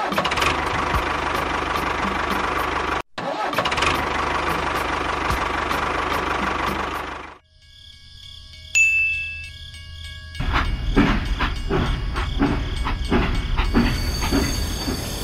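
A motor runs steadily and loudly, then cuts off suddenly about halfway through. After a short pause a single high ping sounds, and then a toy steam locomotive runs on its plastic track with a rhythmic clatter.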